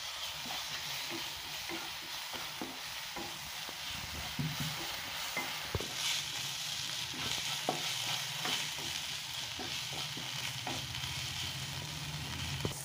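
Chopped onions with ginger-garlic paste and spices sizzling in hot oil in a pan while a spoon stirs them, its strokes scraping and clicking against the pan.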